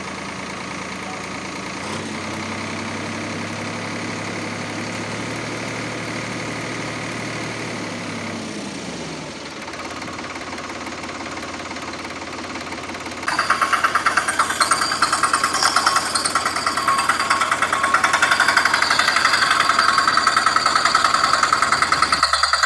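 Toy vehicle's small electric motor running with a steady, engine-like hum. The hum drops in pitch and fades about 8 to 9 seconds in. From about 13 seconds in, a louder, fast rattling buzz takes over.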